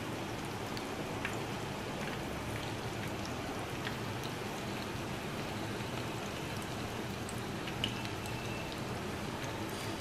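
Breaded chicken nuggets frying in hot oil in a pan: a steady sizzle dotted with small scattered pops and crackles.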